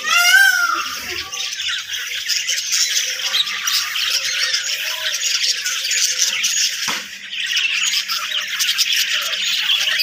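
A flock of budgerigars and cockatiels calling together, a continuous busy chatter of many overlapping calls. A loud harsh squawk stands out in the first second.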